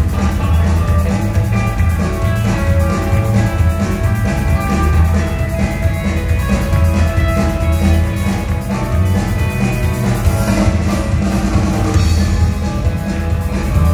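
Live rock and roll band playing an instrumental passage with electric guitar, bass and drums, with a steady, driving beat and no vocals.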